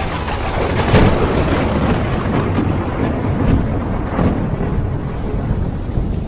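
Thunder cracking about a second in and rolling on in a long, grainy rumble during a heavy rainstorm.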